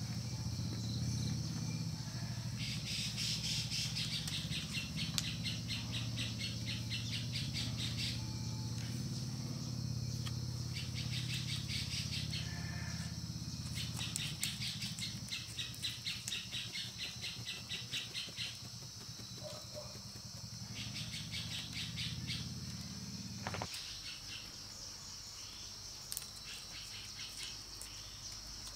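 Outdoor rural ambience: insects and birds calling, with a steady high buzz and several stretches of fast pulsing chirps a few seconds long. Underneath, a low hum runs and stops abruptly near the end.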